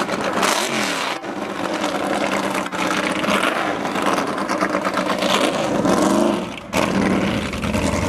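Lola T70 race car's V8 engine running as it moves off at low speed, with the revs rising under throttle a couple of times. The sound breaks off abruptly at a few points.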